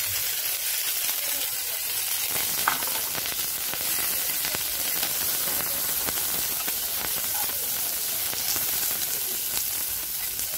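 Sliced onions and curry leaves sizzling steadily in hot oil in a nonstick kadai, with a spatula stirring them. There is one sharp tap about three seconds in.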